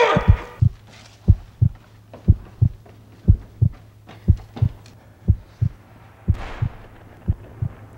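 Heartbeat sound effect: paired low thumps, lub-dub, repeating steadily about once a second over a low steady hum, with a brief breathy hiss about six seconds in.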